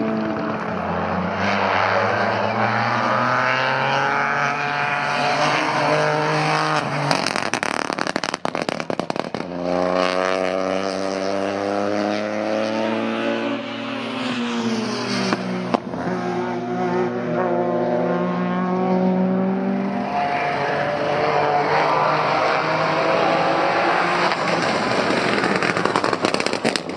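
Peugeot 208 Rally 4's turbocharged 1.2-litre three-cylinder engine revving hard, its pitch climbing and dropping through the gear changes. About seven seconds in, off throttle, the anti-lag system fires a rapid run of crackles and bangs for about two seconds, with a single bang again later.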